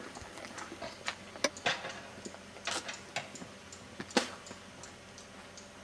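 Clock ticking steadily, about three ticks a second, with a few louder sharp knocks in between.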